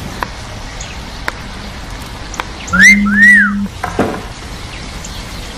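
Mobile phone ringing with a wolf-whistle ringtone: one rising whistle, then one that rises and falls, with a low buzz under them.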